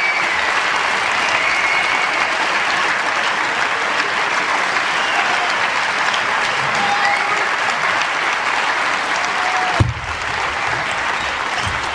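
Audience applauding steadily between points. About ten seconds in there is a sharp click and the applause falls away.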